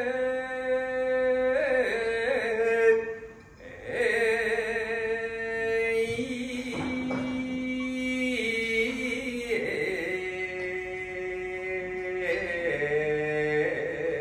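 Men's voices singing an Edo kiyari, the traditional tobi and fire-brigade chant, here the celebratory iwai kiyari, unaccompanied. Long drawn-out notes with wavering ornamented turns, broken by a brief pause for breath about three and a half seconds in.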